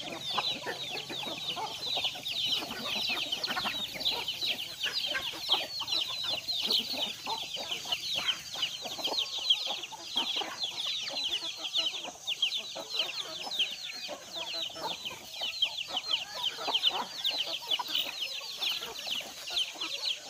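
A large flock of chickens: many chicks peeping without pause in a dense chorus of high, falling chirps, with hens clucking underneath.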